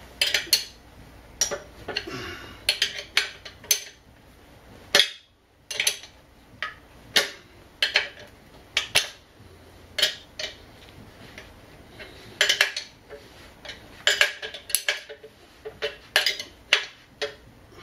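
A steel wrench and hex key clink against the nut and stud of a new ball joint as the nut is run down onto a lower control arm. The sound is a series of sharp, irregular metal clicks, some coming in quick clusters.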